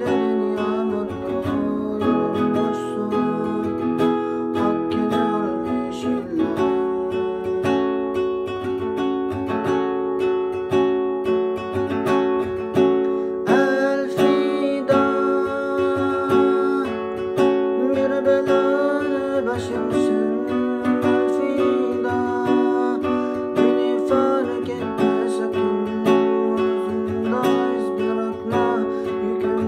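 Nylon-string classical guitar played as a solo, with chords and melody notes ringing and the harmony changing every few seconds.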